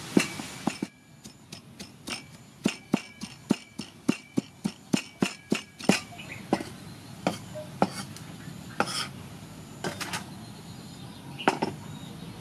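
Cleaver chopping tomatoes on a thick wooden chopping block: a run of sharp knocks, about three a second, that thins out to scattered knocks after about six seconds.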